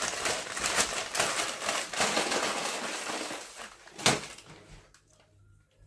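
Dense crackling and crunching close to the microphone, full of quick sharp crackles, fading out after about three and a half seconds, with one sharp click about four seconds in.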